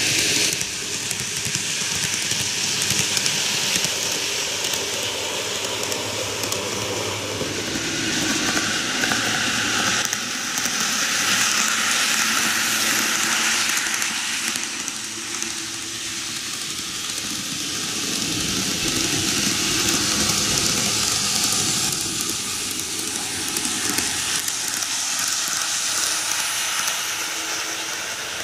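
TOMIX N-gauge model trains, the KiHa 8200 'Kita Alps' set among them, rolling over TOMIX superelevated track: a steady hissing rumble of small metal wheels on the rails and the models' motors. It grows louder as a train passes close, around the middle and again a little later.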